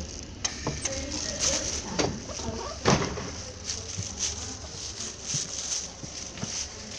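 Footsteps and knocks of a handheld camera being carried as someone steps from the platform onto a train, with one sharper knock about three seconds in, over the train's steady low hum.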